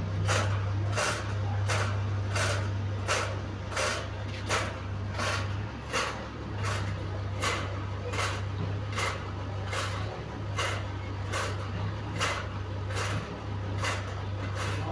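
Fan turbine running with a strange rhythmic noise, a stroke repeating about one and a half times a second over a steady low hum.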